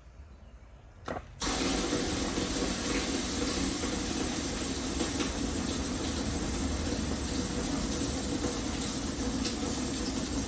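Transfer pump starting up about a second and a half in with a short knock before it, then running steadily, drawing water off the bottom of an underground heating-oil tank.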